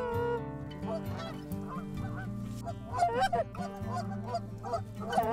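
Canada goose honks and clucks, many short calls in quick, overlapping succession, busiest about three seconds in and again near the end.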